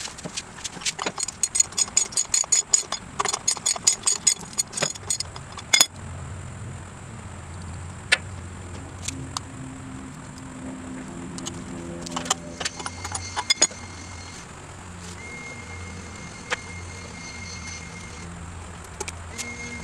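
Ratchet wrench clicking in quick runs as the rear axle nut of a motorcycle wheel is worked loose. About six seconds in this gives way to occasional single metal clicks and clinks at the hub over a low steady hum.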